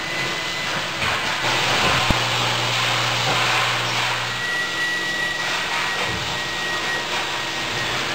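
Steady machine noise of a running robotic automation cell, with a sharp click about two seconds in followed by a low hum lasting a couple of seconds, and a faint high whistle later on.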